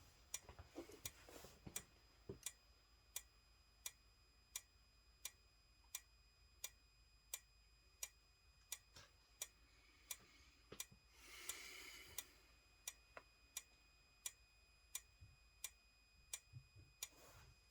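Simplex 4903-9221 horn/strobe with only its strobe powered and the horn not yet wired: a faint, sharp tick with each flash, about every three-quarters of a second, over a faint steady high whine.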